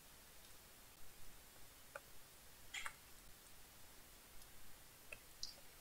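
Near silence broken by a few faint computer mouse clicks, two of them in quick succession.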